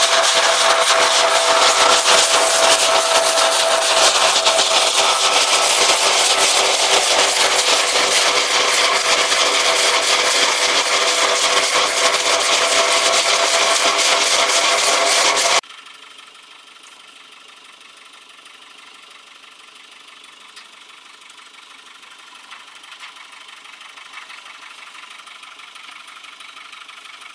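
A hazelnut thresher (patoz) runs loud and steady, with a continuous whine over its running noise. About fifteen seconds in the sound drops abruptly to a much fainter, steady machine hum.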